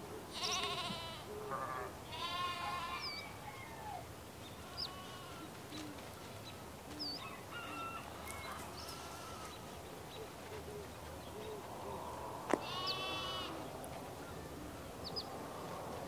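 House sparrows chirping. A few loud chirps come in the first three seconds, short high chirps are scattered through the middle, and another loud chirp comes about thirteen seconds in, just after a single sharp click.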